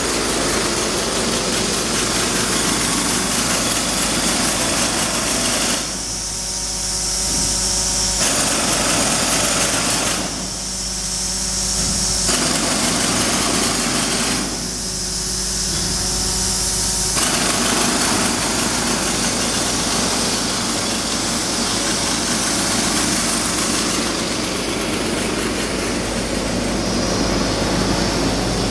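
Jackhammer breaking concrete, running loud and continuous with three short pauses of about two seconds, its racket echoing off the building's concrete floors.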